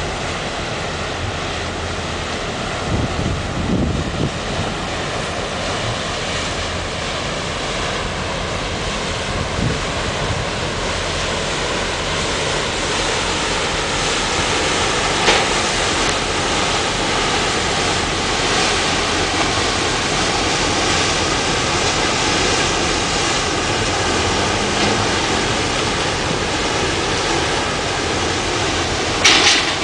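Steady rush of wind and choppy harbour water, with the low drone and bow wash of the cruise ship Costa Mediterranea passing close by, growing a little louder through the second half. A short knock about halfway through and another near the end.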